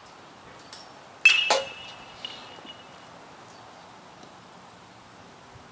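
A metal baseball bat hits a pitched ball once, about a second in: a sharp ping that rings briefly, followed right after by a smaller knock.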